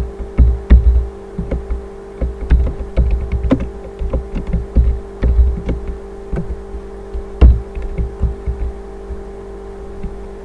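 Typing on a computer keyboard: irregular keystrokes, each landing with a low thud, over a steady electrical hum.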